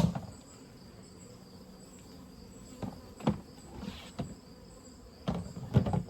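Crickets trilling steadily and high-pitched, with a few sharp wooden knocks and clunks about three seconds in and near the end from hive frames and boards being handled.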